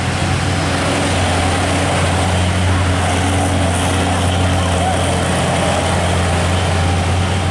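Heavy diesel truck engine running at low revs, a steady deep drone that holds even throughout.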